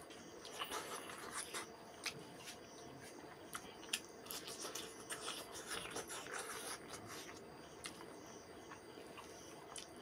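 Close-up eating sounds of rice and fried fish eaten by hand: wet chewing, lip smacks and small clicks, with soft squelches of fingers pressing rice. The sounds come irregularly and are busiest in the first two-thirds.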